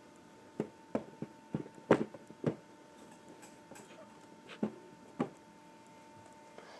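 Plastic Lego pieces clicking and knocking as a large Lego building model is handled and its upper floor lifted off: about eight sharp clicks, bunched in the first three seconds, the loudest about two seconds in, with two more near the middle.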